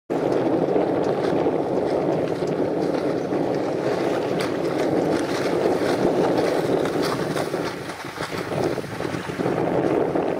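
Wind blowing across the microphone, a steady rushing noise that eases a little near the end.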